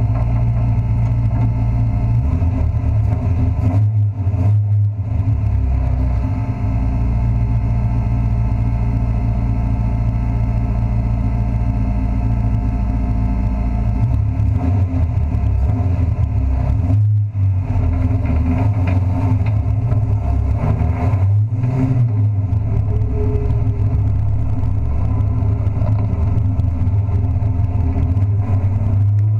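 Race truck engine heard from inside the caged cab, running hard under load at a steady pitch. The note drops briefly three times, about four, seventeen and twenty-one seconds in.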